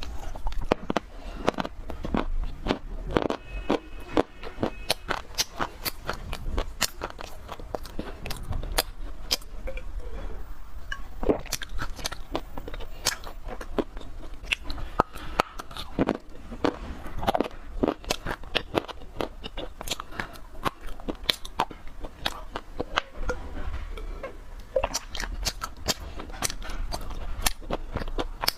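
Clay crunching and crackling: a dense, irregular run of sharp cracks with no let-up.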